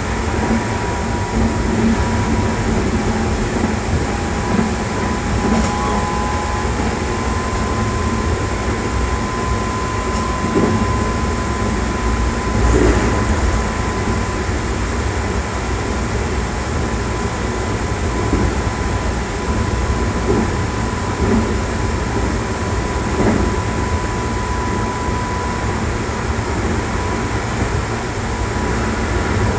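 Keikyu 600 series electric train running at speed: a continuous rumble of steel wheels on rail under a steady whine, broken by occasional knocks over rail joints.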